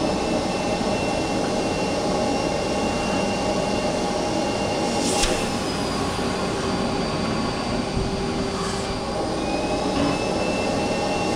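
Vacuum running steadily for dryer-vent cleaning, a loud even rush with a faint high whine, broken by a few brief knocks about five, nine and ten seconds in.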